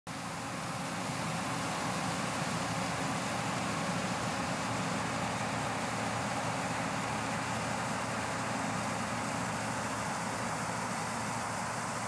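A 1991 New Holland TR86 combine running steadily while harvesting corn, its engine and threshing machinery making an even mechanical rumble and hiss. The sound fades in over the first second and then holds unchanged.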